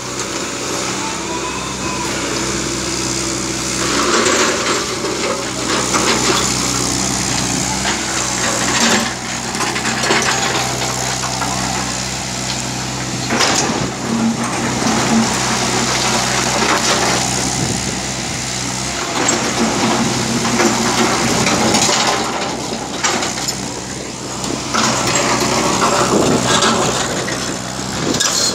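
JCB tracked excavator's diesel engine running steadily while the machine works, with stones clattering and scraping in repeated spells as the bucket and tracks move over broken rock.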